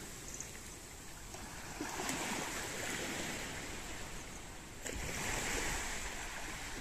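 Small waves lapping and washing up a sandy beach, the wash swelling about two seconds in and again about five seconds in.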